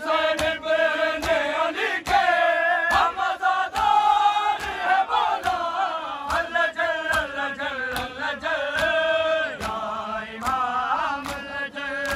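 Men's voices chanting a Shia noha lament in a steady rhythm. In time with it come sharp slaps of matam, hands striking bare chests, a little more than one a second.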